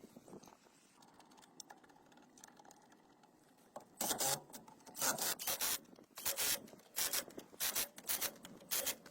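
Repeated back-and-forth rubbing strokes by hand on a surface, about two a second, starting about four seconds in after a stretch of faint handling noise.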